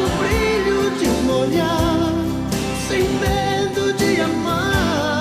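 Background music: a song with a sung vocal over instrumental accompaniment.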